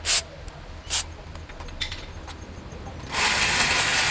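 Two short knocks of tools on metal under a pickup's steering rack, then about three seconds in a loud, steady spray hiss begins.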